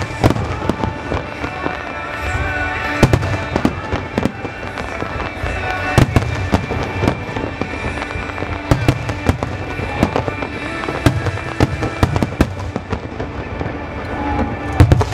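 Aerial fireworks bursting in quick succession, with sharp bangs throughout and heavier booms about 3, 6 and 15 seconds in, over the show's music soundtrack.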